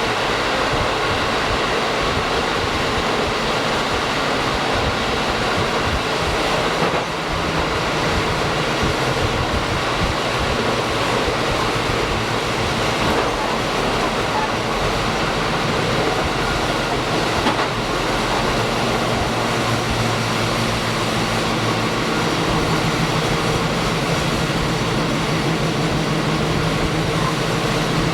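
Diesel limited-express railcar running along the line, heard from behind the driver's cab: a steady rumble of wheels on rail with the engine's drone, which grows stronger in the second half.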